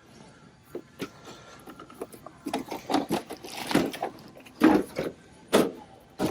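Clicks, clacks and rattles of a cash register being handled and worked at, sparse at first and busier after a couple of seconds, with a few sharp knocks near the end.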